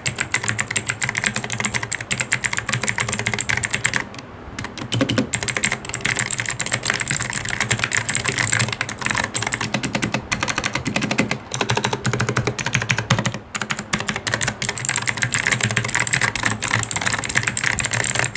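Typing on a Gamen Titan Elite mechanical keyboard with Otemu Blue switches: rapid, nearly continuous key clicks, with a brief pause about four seconds in.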